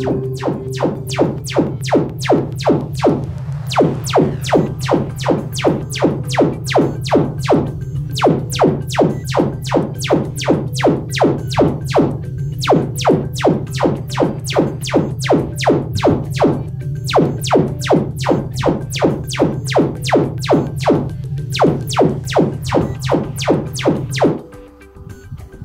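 Sonos Arc Ultra soundbar playing its Trueplay room-calibration test signal, which measures the room's acoustics. It is a rapid, regular series of sweeping tones, about two to three a second, over a steady low hum, and it cuts off suddenly near the end.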